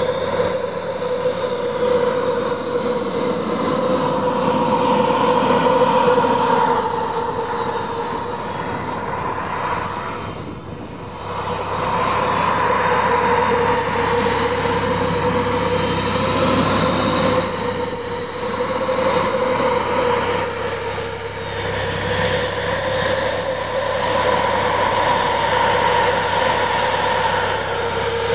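Merlin turbine engine of a model MiG-29 jet running as the model taxis. Its high whine rises and falls repeatedly with the throttle, and eases off briefly about ten seconds in.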